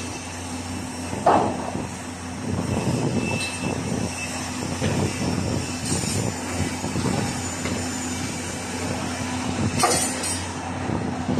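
Steady drone of heavy construction machinery running, with a constant low hum. A sharp knock about a second in and a brief clank near the end stand out over it.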